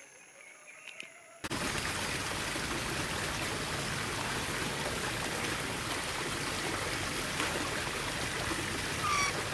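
Steady rush of flowing water, starting abruptly about a second and a half in after a faint high insect buzz. Near the end a single short bird call falls in pitch over the water.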